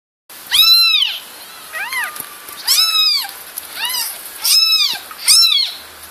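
Newborn kittens mewing: six high, thin cries, each rising and then falling in pitch, two of them fainter than the rest.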